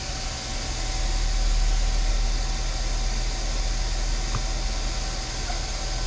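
Steady fan-like whooshing hum with a low drone and a faint steady whine; one small click a little past the middle.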